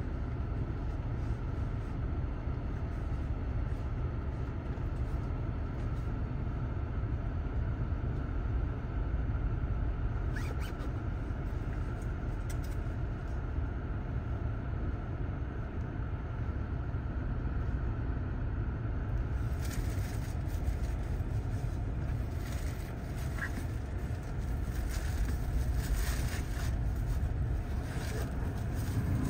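Steady low rumble heard from inside a car as a Boeing 787-9 jet airliner comes in on final approach. A brighter hiss joins about two-thirds of the way through as the jet draws nearer.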